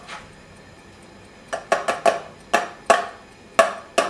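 Kitchenware being handled over the stove: a quick, irregular run of sharp clinks and knocks, about eight of them, starting about a second and a half in.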